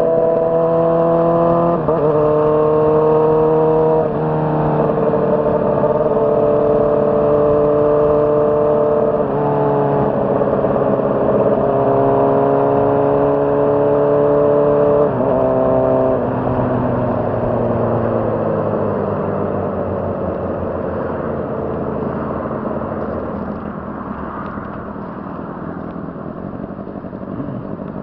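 Honda CBR600RR's inline-four engine pulling through the gears. The pitch climbs and then drops sharply at each shift, about 2, 4, 9 and 16 seconds in. In the second half the revs fall away gradually and the sound grows quieter as the bike slows.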